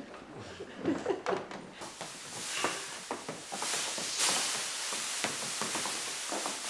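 A large sheet of thin plastic film being shaken and swirled through the air, rustling and crackling. A few soft clicks at first, then about two seconds in the crackle rises into a dense, continuous rustle full of sharp ticks.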